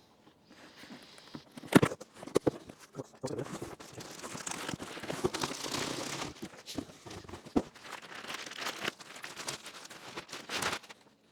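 Cardboard shipping box being opened by hand: tape and cardboard tearing and packaging crinkling, with a few sharp knocks, the loudest about two seconds in.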